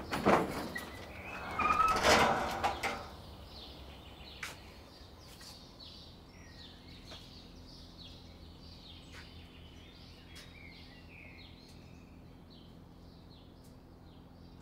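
An overhead garage door scraping and rattling as it is pushed up, in two pulls over the first three seconds. After that it is quiet, with birds chirping and a faint steady hum.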